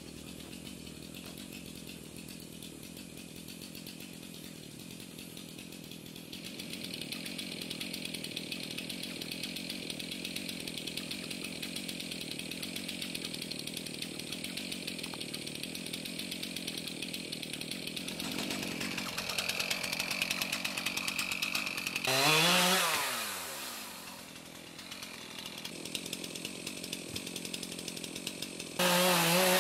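Two-stroke chainsaw running steadily, louder from about six seconds in. Twice, about two-thirds through and again near the end, it is revved hard and its pitch falls away as the throttle is let off.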